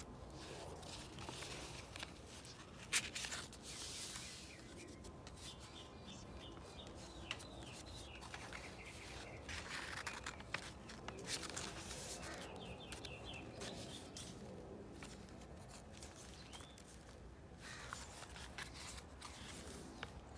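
Pages and paper inserts of a handmade junk journal rustling and shuffling as it is flipped through, soft and irregular, with a sharp tap about three seconds in.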